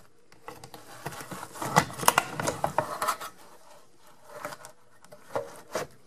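Sheet-metal lower kick panel of a built-in dishwasher scraping and clicking as it is worked loose and pulled out and down: a quick run of light scrapes and clicks over the first three seconds, with a few more near the end.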